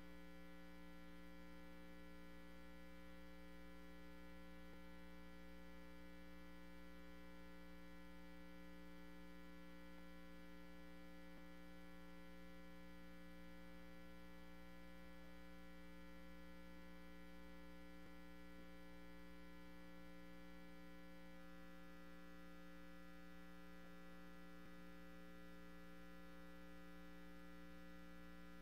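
Faint, steady electrical mains hum on the sound system's feed, a low buzz with several steady tones stacked above it and no voice coming through: the microphone is not yet live.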